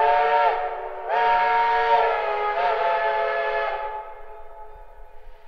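Narrow-gauge steam locomotive's whistle sounding twice, a short blast and then a long one, several tones together, each sliding up slightly as it opens. It fades away with the tones lingering near the end.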